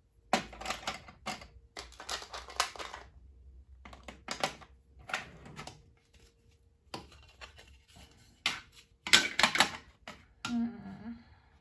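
Small hard craft accessories and containers clicking and clattering as they are handled and set into a steel toolbox, in bursts of rapid clicks with short gaps, the loudest burst about nine seconds in.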